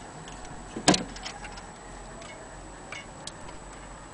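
Antique Vienna wall clock movement ticking, with one much louder knock about a second in.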